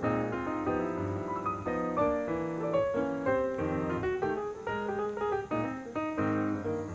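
Background piano music: a run of notes at a moving tempo.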